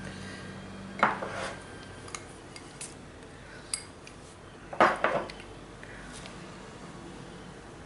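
Small china ramekins clinking and clattering against a glass mixing bowl as ingredients are tipped and scraped in: two louder clatters, about a second in and near five seconds, with a few light clicks between.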